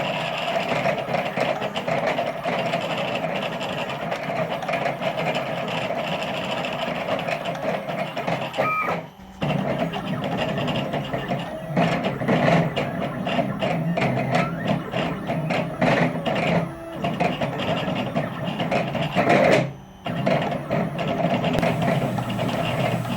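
400 oz-in bipolar stepper motors of a DIY Sidewinder CNC router, run at 4 amps by THB6064AH drivers, whining and jumping in pitch as they drive the lead screws back and forth, with brief pauses about 9, 17 and 20 seconds in.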